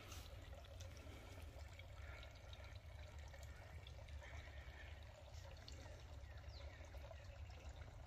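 Faint, steady trickle of water pouring out of a tree limb into a swamp pool.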